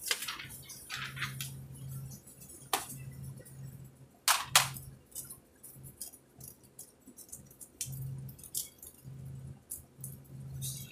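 Small plastic makeup items and a clear plastic wrapper being handled: scattered sharp clicks and rustles, the loudest a few clicks in the first half, over a low hum that comes and goes.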